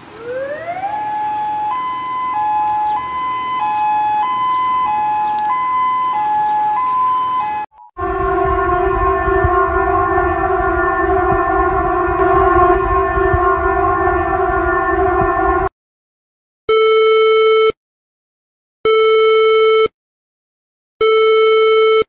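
A run of synthetic emergency alert alarm tones. First a tone glides up and then switches back and forth between two pitches for about eight seconds. After a short break comes a steady chord of several tones for about eight seconds, and then three one-second beeps spaced about two seconds apart near the end.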